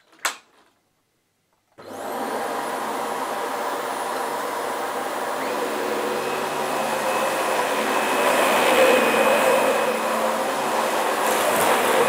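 A single sharp click, then about two seconds in a Dyson DC25 ball upright vacuum cleaner switches on, its motor whine rising quickly to speed. It then runs steadily while vacuuming carpet, getting a little louder past the middle.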